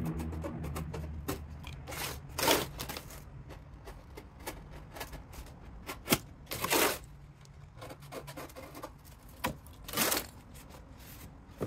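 Cardboard box being handled: the box rubbing and scraping on the bench and its sides being pressed, with three louder swishes spread through and small scattered clicks in between.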